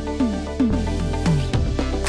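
Electronic background music with a steady beat and short falling synth notes.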